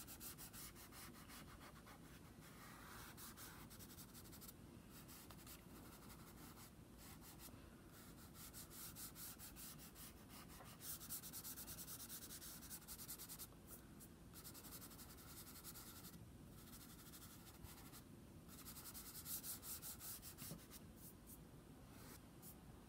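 Fingertips rubbing soft chalk pastel into toned paper to blend it: a faint rubbing that comes in strokes and swells louder now and then.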